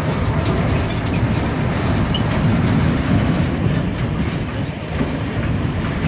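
Open-top safari jeep driving along a dirt track: a steady low rumble of engine and tyres over rough ground.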